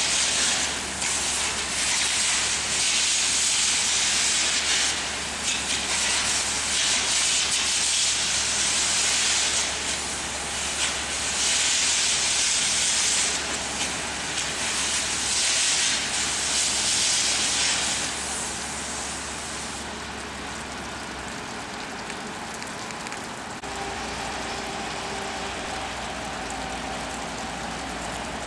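Cutting torch hissing steadily as it cuts through steel, dipping briefly a few times and fading out about two-thirds of the way through, leaving a quieter background hum.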